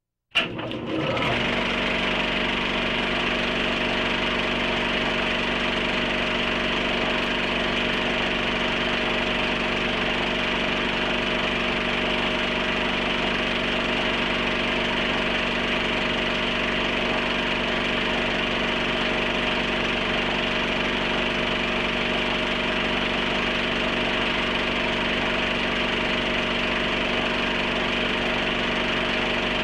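Film projector running with a steady mechanical whir and clatter, starting abruptly with a click just after the beginning.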